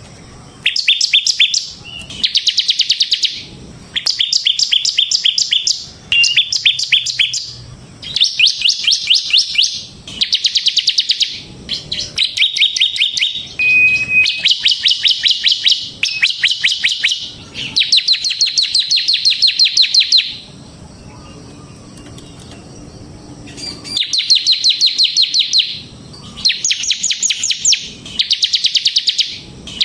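Bar-winged prinia (ciblek semi) singing in rapid, drill-like ("ngebren") trills. Each phrase is a second or two of fast, high notes, and the phrases repeat with short gaps, broken by a longer pause about two-thirds of the way through.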